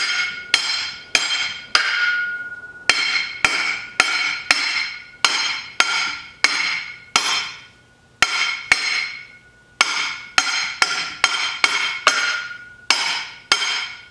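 A hammer tapping on a pipe run down a solid front axle tube, driving a socket against a new inner axle tube seal to seat it in the machined recess of the housing. Sharp ringing strikes about twice a second, in three runs with short pauses about two and eight seconds in.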